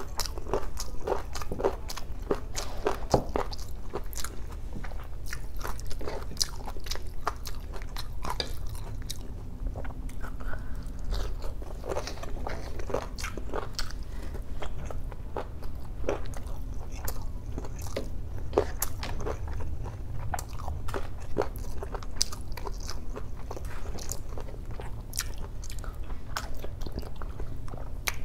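Close-miked eating: a person chewing and biting soft boiled pork hock and rice, with many short, sharp wet clicks and smacks of the mouth. A steady low hum lies underneath.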